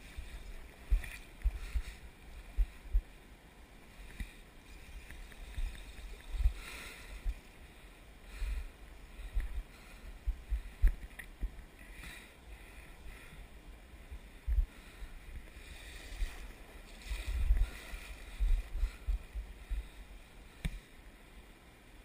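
Shallow river water sloshing and splashing around a wading angler, with frequent irregular low thumps of bumping on the camera housing.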